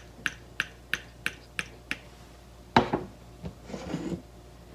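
A quick run of sharp light clicks, about three a second, from a glass soy sauce bottle shaken over a small ceramic dish, stopping about two seconds in. About three seconds in, a single knock as the bottle is set down on the countertop, followed by faint clatter.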